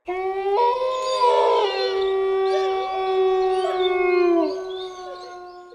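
Logo sting for the production company: several long held tones sounding together. They start abruptly, the lowest slides down in pitch about four and a half seconds in, and the sound fades out near the end.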